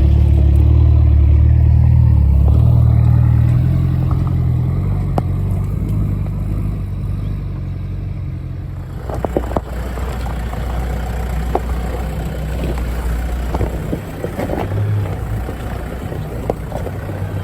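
Off-road 4x4 engine running loud for the first few seconds, then easing off as the vehicle works along a rough track, with scattered knocks and rattles from about nine seconds in.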